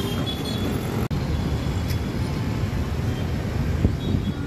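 Steady street traffic noise, with motor vehicles running and a low continuous rumble. The sound cuts out for an instant about a second in.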